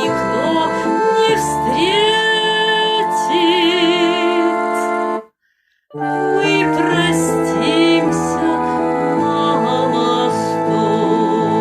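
Background music with sustained keyboard chords, a low bass pulse and a gliding melody line with vibrato. About halfway through it breaks off for half a second of silence, then starts again.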